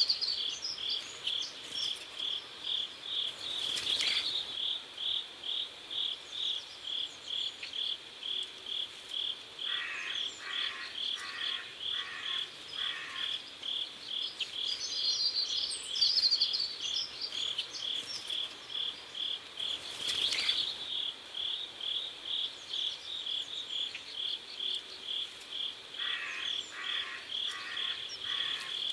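Crickets chirping in a steady, even rhythm, a high-pitched chirp two to three times a second. Twice a lower call of five quick pulses joins in.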